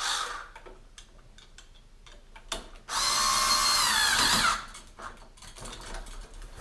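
Cordless electric screwdriver driving a light switch's terminal screw down onto the wire. It runs for about a second and a half, its pitch dropping as the screw tightens, with small clicks of handling around it.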